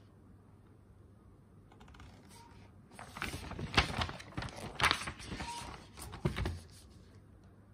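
Model-kit instruction-manual pages being handled and turned: paper rustling and flapping with several sharp snaps. It starts about three seconds in and dies down near the end.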